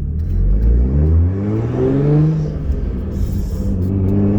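Turbocharged 2JZ-GE straight-six of a 2003 Lexus IS300 accelerating hard, its pitch climbing for about two seconds. It drops at a gear change about two and a half seconds in, then climbs again.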